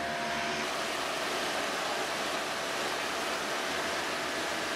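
Mountain stream rushing over rocks and a small cascade, a steady rush of water.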